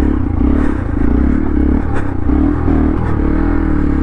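Hero Xpulse 200 4V's single-cylinder engine revving up and down again and again under load as the motorcycle climbs a steep dirt trail, with a few knocks and clatters.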